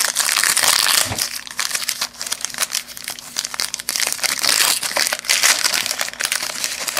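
Plastic trading-card pack wrapper crinkling and crackling as it is torn open and the cards are pulled out, a dense, continuous run of crackles.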